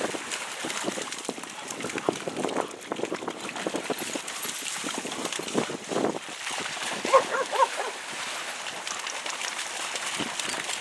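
Dogs running and splashing through shallow muddy water, in quick, irregular footfalls. A short high squeal comes about seven seconds in.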